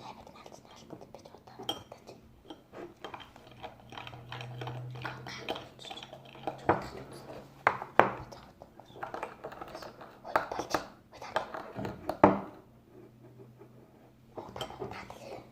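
Clinks and taps of a utensil against a bowl or container, as when stirring or scraping a mixture, with several sharper, louder knocks in the second half.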